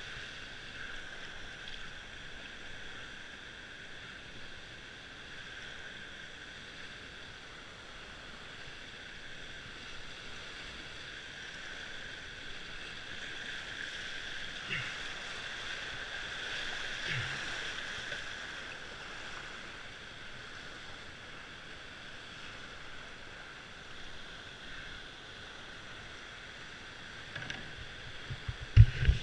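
Whitewater rapids rushing steadily around a slalom canoe as it is paddled down the course. Two faint knocks come near the middle, and louder bumps come just at the end.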